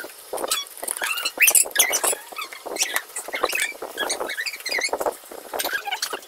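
Bubble wrap crinkling and rustling as it is unwrapped by hand, an irregular crackle of plastic.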